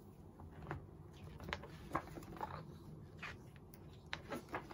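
Pages of a ring-bound photobook turned by hand: soft paper rustles and several light clicks and taps.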